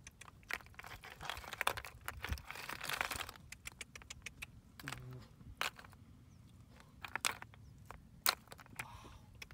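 Snail shells clicking and clattering against one another as they are picked up and heaped by hand. A dense run of crackling handling noise for the first few seconds, then a few single sharp clicks.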